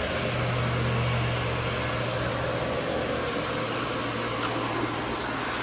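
Cooling fans of a GPU mining rig and its server power supply running, a steady whir with a low hum underneath.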